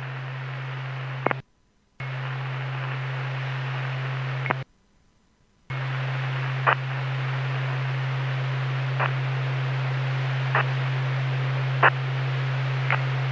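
Police radio channel held open by a keyed microphone, with no one talking: steady hiss and a low hum. It cuts out twice in the first six seconds, and short clicks come every second or two.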